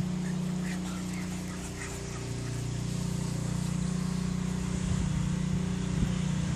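Steady motor hum from an engine running at a constant speed, holding one low pitch. A few faint high chirps come in about a second in.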